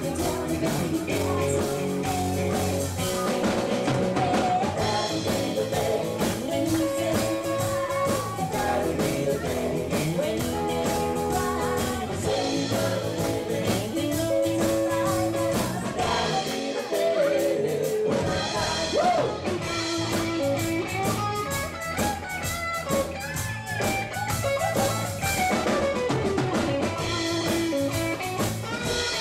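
Live country-rock band playing: a woman singing lead into a microphone over electric guitar and drums. The bass end drops out briefly a little past the middle, then the full band returns.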